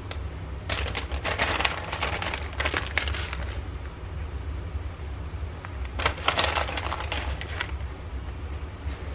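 Crinkling of a plastic bag of shredded cheddar cheese in two spells, about a second in and again around six seconds in, over a steady low hum.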